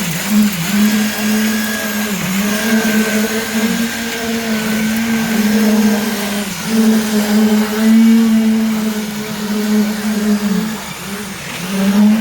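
A motor on a concrete-casting site running steadily with a strong hum, its pitch sagging briefly every couple of seconds as if loaded, and easing off for about a second near the end before picking up again.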